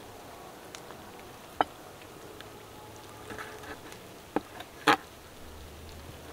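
A few short, sharp clicks or knocks over a low steady background, the loudest about five seconds in.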